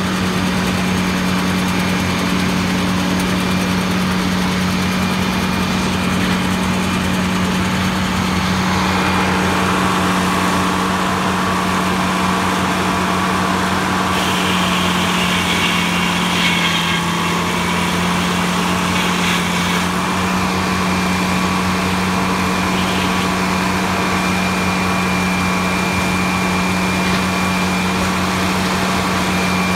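Large circular sawmill running, its engine holding a steady pitch, with a higher whine added for several seconds around the middle.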